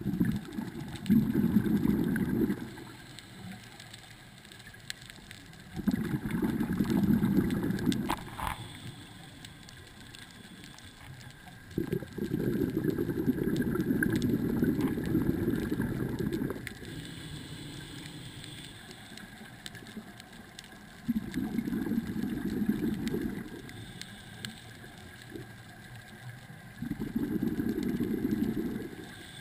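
Scuba diver breathing through a regulator underwater: five long, bubbly exhalations a few seconds apart, with quieter stretches between them.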